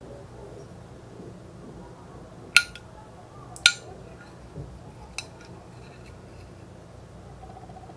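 A plastic utensil knocks twice, sharply, against a ceramic plate while it cuts into a soft jelly, then gives two lighter ticks. A faint pulsing tone starts near the end.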